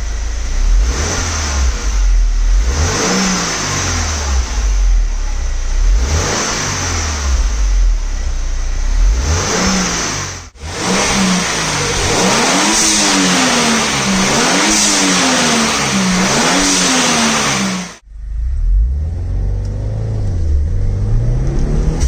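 A 2016 Subaru WRX's turbocharged 2.0-litre flat-four being revved again and again while parked, the pitch climbing and falling with each blip. Each throttle lift brings a burst of air hiss from the turbo's pressure-relief valve venting. The sound breaks off sharply twice, about ten seconds in and near the end.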